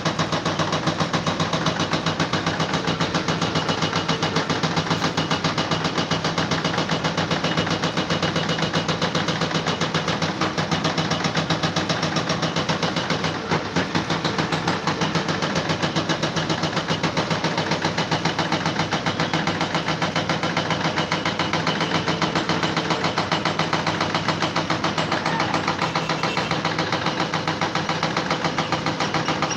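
An engine running steadily with a fast, even pulsing, with a brief dip about halfway through.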